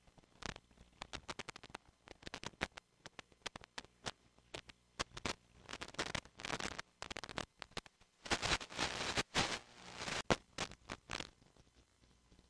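Irregular crackling clicks and bursts of hiss: static picked up by an analog FPV video receiver, with a longer stretch of hiss about two-thirds of the way in.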